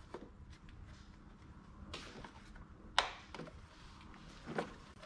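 Plastic air filter cover of a Briggs & Stratton mower engine being handled and lined up by hand: faint light taps and rubbing, with one sharp plastic click about three seconds in.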